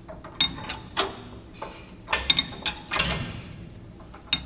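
Ratchet wrench clicking in short, irregular strokes while tightening a radiator mounting bolt in a cramped space, with sharp metallic clinks of tool on iron.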